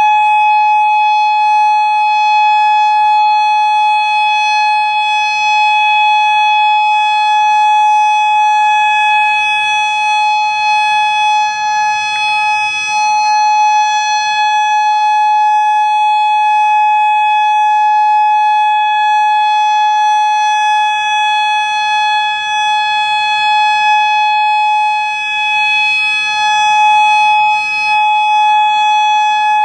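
Federal Signal Modulator 6048 electronic outdoor warning siren sounding its steady Alert tone: one unwavering pitch with no rise or fall, loud with small swells in level. The siren runs with some blown drivers.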